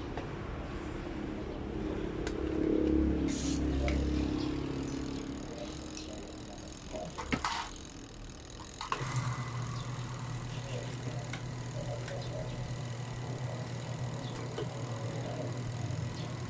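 Automatic washing machine's motor running: one hum fades out, a couple of clicks follow, and a steady hum starts about nine seconds in as the pulsator turns but the drum does not turn with it, which the owner puts down to a broken spring in the spin clutch.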